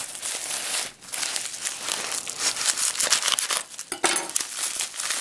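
Bubble wrap crinkling and rustling as hands unwrap a package, in a dense run of irregular crackles with a brief lull about a second in.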